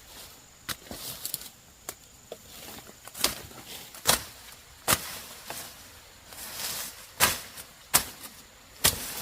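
Irregular sharp knocks, roughly one a second, over a faint steady hiss; the loudest come about four and five seconds in and near the end.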